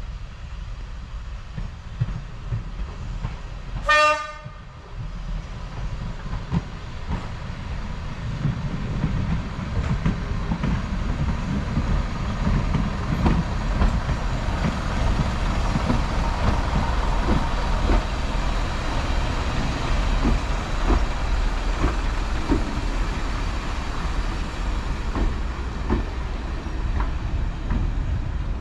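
A first-generation diesel multiple unit sounds one short horn blast about four seconds in. Its diesel engines then rumble as it approaches and runs past, with its wheels ticking over the rail joints.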